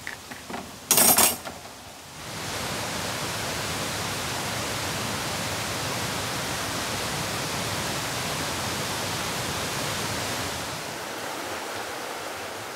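A short burst of noise about a second in, then a steady rushing noise that sets in about two seconds in and eases slightly near the end.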